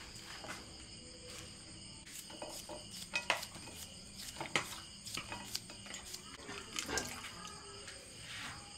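Lettuce leaves and sliced cucumber handled onto a ceramic plate: soft rustling and light clicks, with a few sharper taps about three, four and a half and seven seconds in. Faint insects chirr steadily behind.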